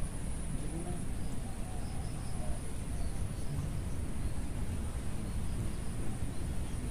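Outdoor ambience: a steady low rumble with a thin, steady high insect drone over it, and faint distant voices about a second in.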